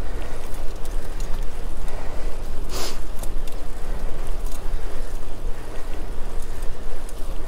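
Wind buffeting a GoPro camera's microphone on a moving bicycle: a loud, steady low rumble, with a short hiss about three seconds in.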